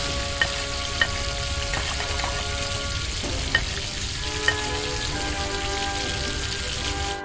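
A steady hiss, with a few soft clicks scattered through it, over sustained background music notes.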